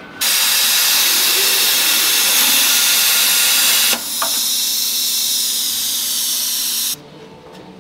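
CNC plasma table torch cutting steel plate: a loud, steady hiss that starts suddenly, changes tone with a click about four seconds in, and cuts off abruptly near the end.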